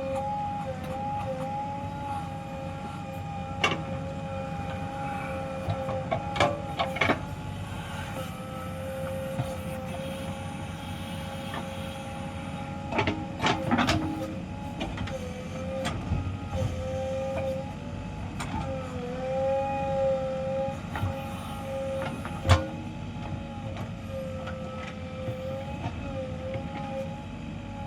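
JCB 3DX backhoe loader's diesel engine running under load with a steady whine that dips and recovers now and then. Occasional sharp metallic knocks and clanks from the digging gear.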